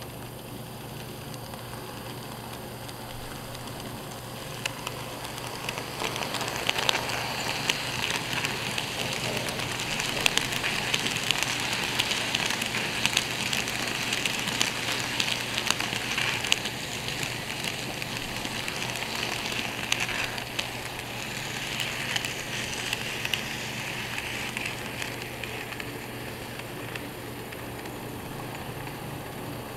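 N scale model train passing at close range: its small wheels rattle on the track with many tiny clicks, building up, peaking as the cars go by and fading away. A steady low hum runs underneath.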